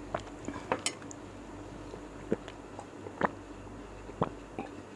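About half a dozen scattered light clinks and taps from a stemmed drinking glass and tableware on a glass-topped table, as the glass is picked up and drunk from.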